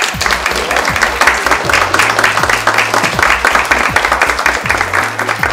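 Audience applauding over music with a steady bass-drum beat.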